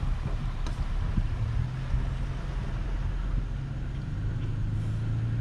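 Toyota Tacoma pickup's engine running at low speed, a steady low hum heard inside the cab.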